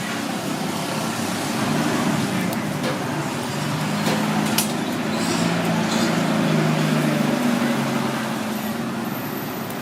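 Street traffic: motor vehicle engines running and passing, their hum swelling in the middle, with a few sharp clicks and indistinct background voices.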